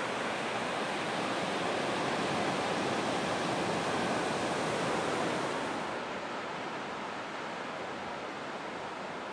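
Ocean surf breaking and washing up a sandy beach: a steady rush of waves that grows a little quieter and loses some of its hiss about six seconds in.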